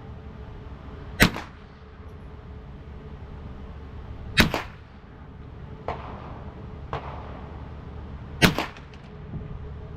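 Three single gunshots several seconds apart in slow target fire, each a sharp crack with a short echo, plus two fainter sharp reports between the second and third shots.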